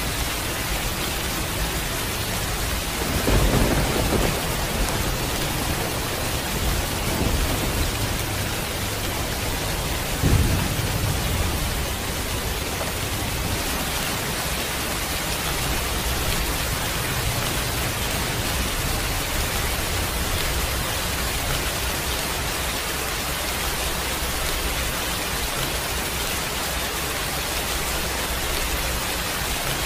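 Heavy rain falling steadily, with low rumbles of thunder swelling about three seconds in and again, more suddenly, about ten seconds in.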